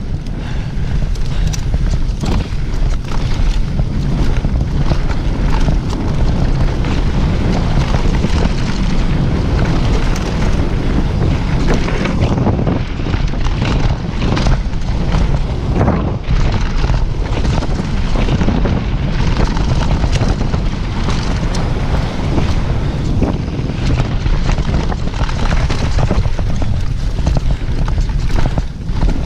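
Heavy wind buffeting on the microphone from a downhill mountain bike moving at speed, with a constant clatter of quick knocks and rattles from the bike over rough trail.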